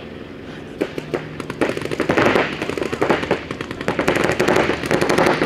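Paintball markers firing: a few scattered shots about a second in, then from about a second and a half many rapid strings of pops overlapping, as several players shoot at once.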